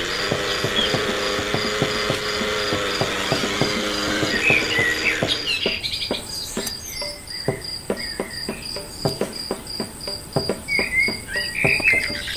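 Crickets chirping in a steady, pulsing high trill, with a run of sharp, irregular knocks from the wooden pestle in the stone mortar. For about the first five seconds a steady hum with a low tone lies over it, then stops.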